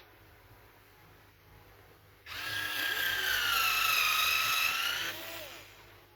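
Power drill running for about three seconds, starting suddenly about two seconds in; its whine sags slightly in pitch midway, as if under load, then recovers before it stops.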